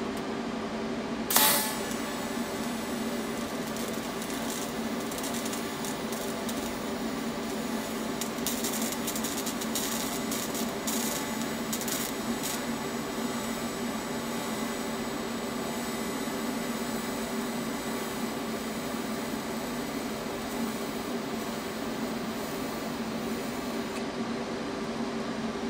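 TIG welding arc on 1/8 inch steel, a fused pass without filler: a sharp crack as the arc strikes about a second and a half in, then a steady buzzing hiss with some crackle partway through. The arc cuts out near the end, leaving the welding machine's steady hum.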